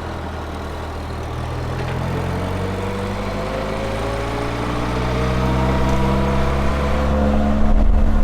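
1964 MG Midget Mk II's 1098cc four-cylinder engine pulling under acceleration, its pitch climbing slowly as it gets steadily louder.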